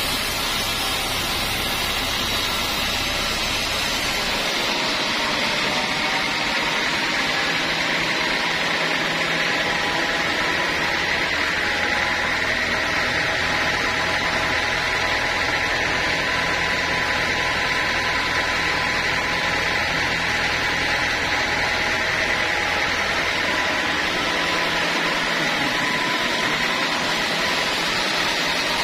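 Large sawmill band saw running and ripping a teak slab lengthwise into boards: a steady, unbroken machine noise with a faint humming tone.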